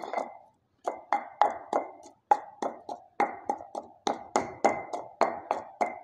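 Wooden pestle pounding a wet paste of ground seeds in a stone mortar (kundi): a steady run of knocks, about three a second, each with a short ring. The knocks start about a second in, after a brief pause.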